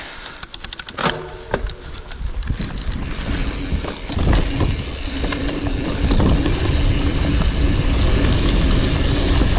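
A Cube Stereo 150 Race mountain bike's freewheel hub clicking in a quick run of ticks as it rolls off. From about three seconds in, tyre and trail rumble with frame rattle builds and grows louder as the bike picks up speed down a dirt track.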